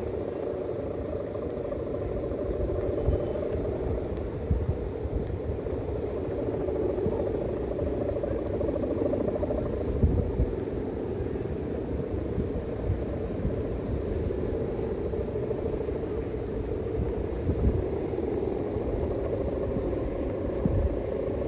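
Strong wind gusting over the microphone with irregular low buffeting thumps, under a steady wavering mid-pitched drone.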